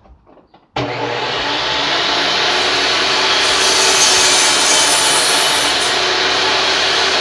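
Electric power saw cutting wood. It starts abruptly about a second in and then runs steadily and loudly through the cut, with the motor's even hum under the rasp of the blade.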